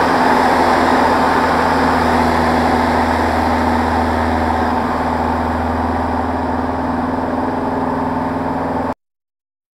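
Van's RV-6A light aircraft in flight: the steady drone of its piston engine and propeller with wind rush over an outside-mounted camera, cutting off suddenly about nine seconds in.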